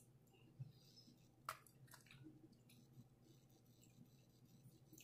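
Faint mouth sounds of a person biting and chewing food, with a couple of sharp clicks, the loudest about one and a half seconds in.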